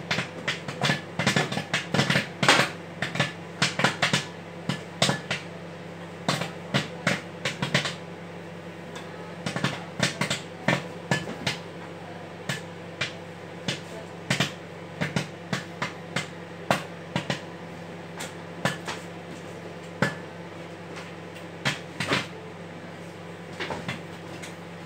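Microwave popcorn popping inside a running Sanyo microwave oven: sharp pops, several a second at first, thinning to about one a second and only a few near the end as the batch finishes popping. Under the pops runs the oven's steady hum.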